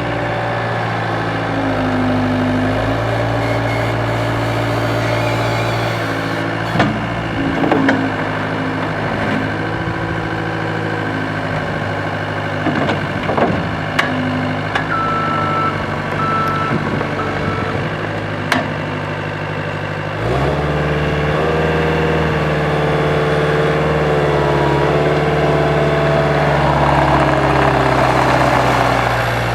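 CAT 259B tracked skid steer's diesel engine running steadily, with a few metallic clunks. A few short beeps of the reversing alarm come about halfway through. About 20 s in, the engine speeds up and holds the higher speed.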